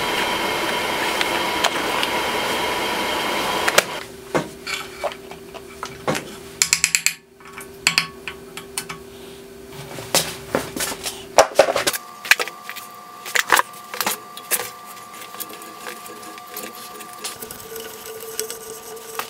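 A steady whir for about the first four seconds stops suddenly. After it come scattered light metallic clicks and clinks: steel taps being taken from a tap-and-die set, and a tap being turned by hand to cut threads in steel square tube.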